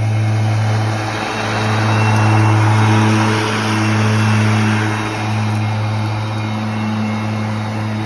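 Ryobi 80V HP brushless electric zero-turn mower running with its cutting blades engaged. It makes a steady hum over a rushing noise from the cut grass, which grows louder about two to three seconds in as the mower passes close.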